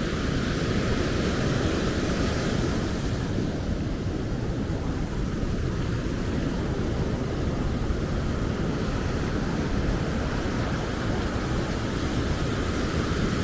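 Heavy storm surf breaking and washing up the beach in a steady roar of water, with wind rumbling on the microphone.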